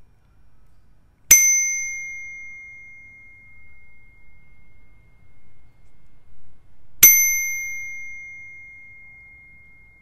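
A bicycle bell struck twice, about six seconds apart. Each strike is a single clear, high ding that rings on and fades slowly, and the second is still ringing near the end.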